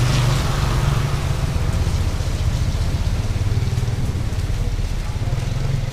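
A small motorcycle passes close by on a wet road and rides off, its engine and tyre hiss fading over about a second. Underneath, a steady low engine drone runs on.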